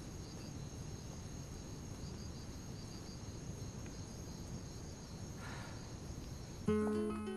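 Crickets chirping steadily over low outdoor background noise. About a second before the end, music with distinct notes comes in and becomes the loudest sound.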